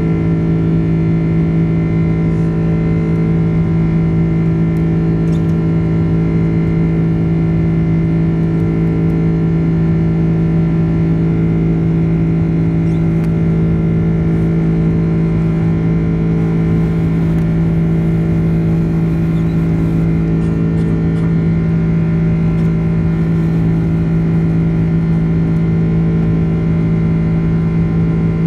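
Boeing 767 cabin noise while climbing after takeoff: the wing-mounted turbofan engine's steady drone with a strong low hum over a constant rush of air.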